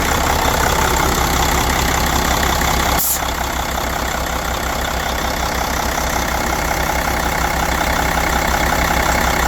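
Mercedes-Benz OM460LA inline-six diesel engine idling steadily, with an even low pulse. There is a brief click about three seconds in, after which the sound is a little quieter.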